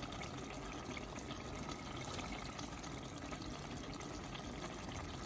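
Tomato stew with oil bubbling steadily in a pot on the heat.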